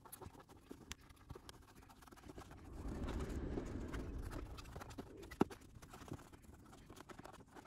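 Faint rubbing and scattered light clicks of fingers pressing a foam insulation strip into the gap between two window sashes, louder for a stretch about three seconds in, with one sharp click a little past halfway.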